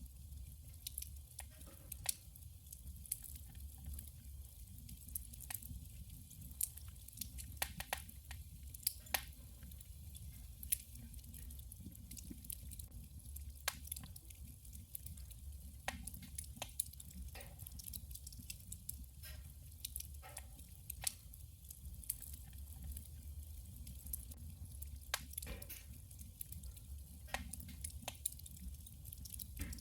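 Firewood burning in a wood stove, crackling and popping in irregular sharp snaps, some louder than others, over a steady low hum.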